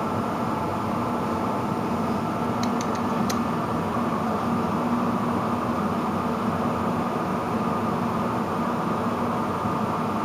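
Furnace blower fan running steadily just after start-up, likely on its high speed setting: an even rush of air with a steady hum. A few faint ticks come about three seconds in.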